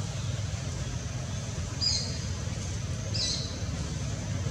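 A bird chirping twice, short high calls about a second and a half apart, over a steady low rumble.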